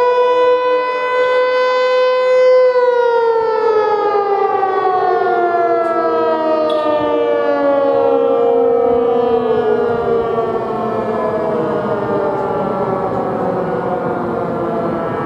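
ASC T-121 outdoor warning siren sounding a steady tone. About three seconds in, its pitch starts falling slowly and keeps dropping as the siren winds down at the end of the test.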